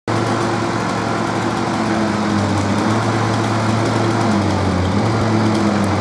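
Two-stroke chainsaw engine running steadily at moderate speed rather than full cutting revs, its pitch shifting slightly a couple of times.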